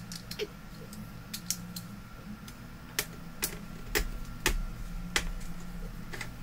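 Irregular light clicks and taps of a small screwdriver and screws on a monitor's sheet-metal mainboard shield as the screws are undone and handled, over a low steady hum.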